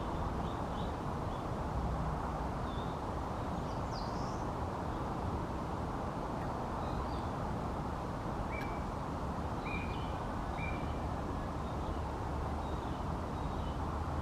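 Steady outdoor background noise with short bird calls scattered through it, including three brief flat notes about a second apart past the middle.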